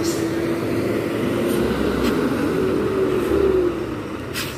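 Heavy loaded cargo truck's diesel engine running as it passes close by: a steady drone that swells to its loudest about three and a half seconds in, then eases off.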